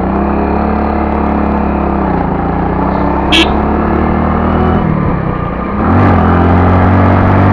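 Motorcycle engine running steadily while riding along. It eases off about five seconds in, then picks up again louder from about six seconds. A single sharp click comes about three and a half seconds in.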